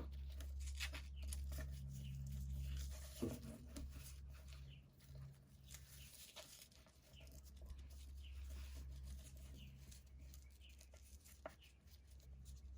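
Faint rustling and small ticks of ribbon being handled and tied into a bow, with a sharper click about 3 seconds in and again near the end, over a steady low hum.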